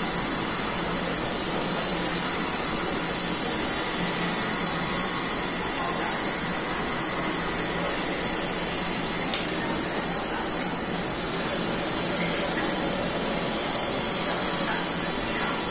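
Steady, even hiss that holds at one level throughout, with no rhythm or clear tone.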